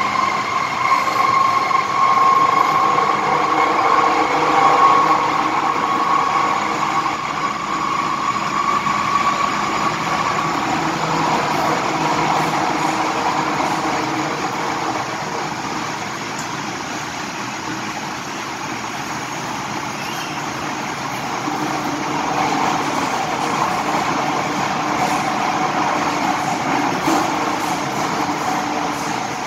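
MTR M-Train electric multiple unit running through a tunnel, heard from inside the car: a steady rumble of the running train with a whine that fades out about ten seconds in.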